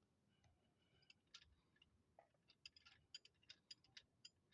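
Near silence with faint, irregular light clicks, coming more often in the second half.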